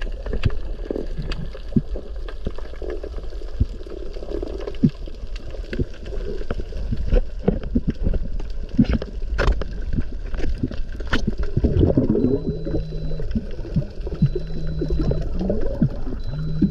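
Underwater sound picked up by a camera: a steady low rumble with many scattered clicks and crackles. Near the end come three short low hums, about two seconds apart.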